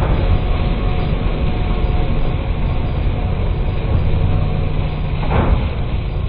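Farm tractor running steadily, a dense low engine drone with a brief rushing swell about five seconds in.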